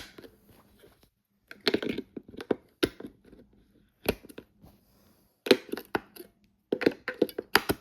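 Uneven clusters of sharp knocks and clatters from an old plastic radio being handled and knocked, with a few single raps and quicker runs of several.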